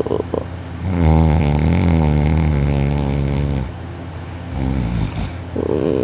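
A young man snoring loudly in deep sleep on his back: one long, droning snore lasting about three seconds, then a quieter breath, and a rough, noisier snore near the end.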